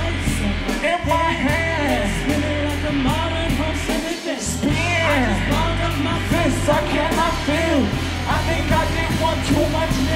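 Live music through a festival sound system: a sung vocal melody over a steady bass line and a regular hi-hat beat. The bass drops out briefly about one second and four seconds in.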